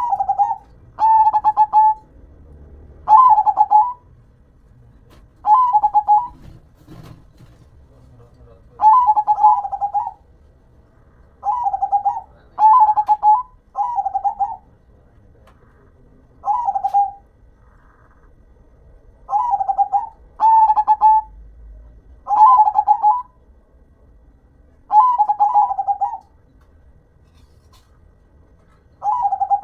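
Zebra dove (perkutut) cooing its rolling song: about fourteen short phrases, each a rapid run of coo notes lasting about a second, repeated every two to three seconds.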